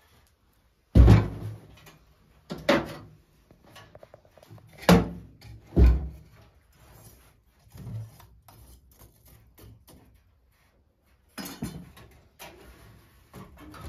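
Sheet-metal wood stove being tended: separate metal clanks and knocks of the firebox door, a log and a poker against the stove, with quieter scraping in the ashes between them. The loudest knock comes about a second in, and another cluster comes near the end.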